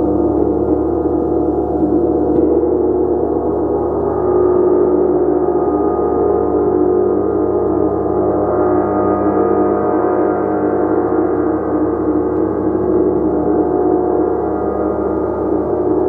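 A gong sounding continuously as a steady wash of many overlapping, sustained tones, with no distinct separate strikes.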